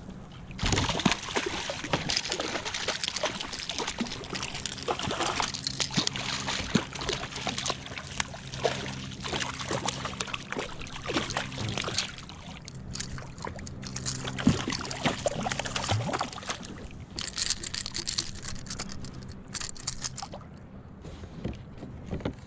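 Water splashing and sloshing beside a kayak, with many sharp irregular splashes: a hooked small bluefish thrashing at the surface as it is fought in. The splashing eases near the end.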